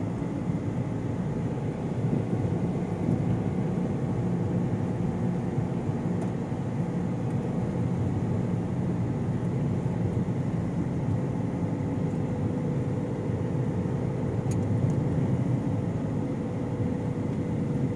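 Steady road and engine noise of a moving car, heard from inside the cabin, with no change in pace.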